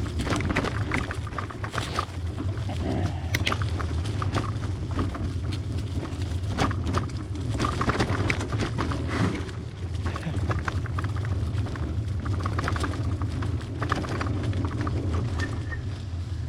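Trek hybrid bicycle being ridden over a rough off-road dirt trail: irregular clatter and rattling of the bike and tyres over bumps, over a steady low rumble.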